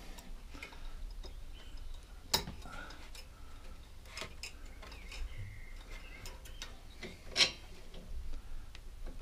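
Scattered light clicks and ticks of hand tools and small metal parts handled at a lawnmower carburettor, with two sharper clicks about two and a half and seven and a half seconds in.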